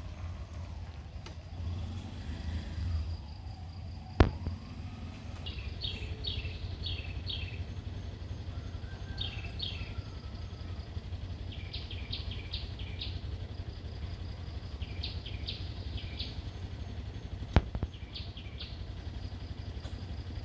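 A bird calling again and again in quick groups of three or four short, high, falling notes, over a steady low rumble. Two sharp clicks stand out, one about four seconds in and one near the end.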